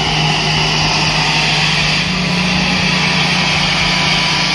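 An off-road 4x4's engine running steadily under load, its pitch stepping up slightly about two seconds in.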